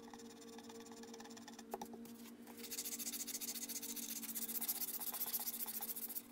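Cured Milliput epoxy putty filling a chip on a ceramic plate being smoothed by hand, first with a small file and then with porcelain sandpaper: rapid, fine scratchy strokes that grow louder about two and a half seconds in.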